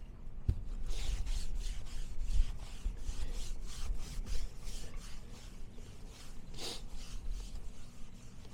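Repeated hand rubbing strokes, about two to three a second, across the dinghy's hull as it is wiped down during surface prep before fibreglassing.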